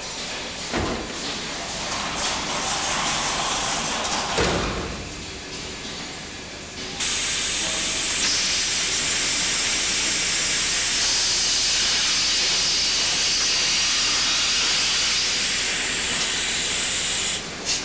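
A couple of sharp knocks. Then, about seven seconds in, a loud, steady hiss of steam from a cannery's steam pressure cooker (retort) starts suddenly and stops shortly before the end.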